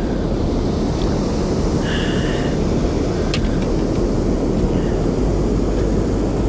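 Steady low rumble of a fishing boat's outboard motor running while trolling, mixed with wind buffeting the microphone. A brief high-pitched chirp sounds about two seconds in.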